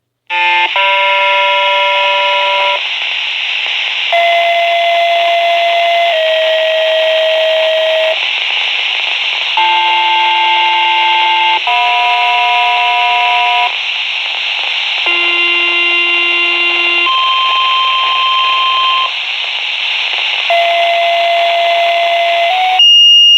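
Fire dispatch sequential paging tones over a radio scanner, the tones that set off the fire sirens in a siren test. Pairs of steady beeps, each about two seconds long and each at a different pitch, with radio hiss between the pairs. Near the end a long, high, steady alert tone starts.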